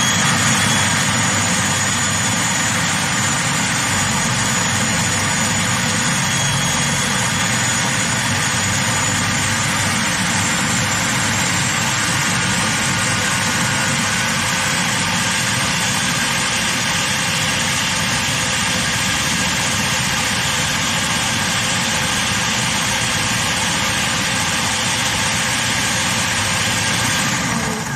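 Electric food processor running steadily at an even level, its blade grinding raw chicken, potato, onion and garlic with flour and egg into a paste; it is switched off at the very end.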